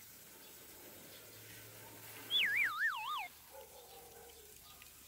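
A single whistle-like tone about two and a half seconds in, falling from high to low while wavering up and down about four times, lasting about a second, over faint background noise.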